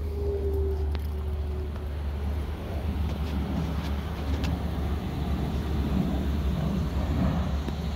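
Honey bees buzzing around an opened hive, one passing close with a steady hum that fades away in the first two seconds, over a constant low rumble.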